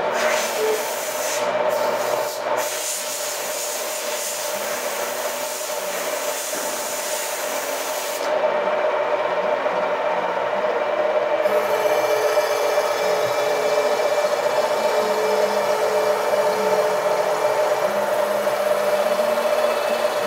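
Milling machine cutting into a wooden shotgun stock held in a vise: a steady motor hum under a continuous rasping cut through the wood. The hissy part of the cut drops away for a few seconds midway, then returns.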